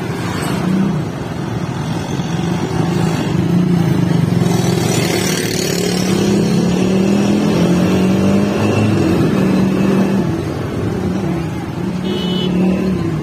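Motorcycle engine running while riding, its pitch rising and falling with speed, over wind and road noise. A short high-pitched beep sounds near the end.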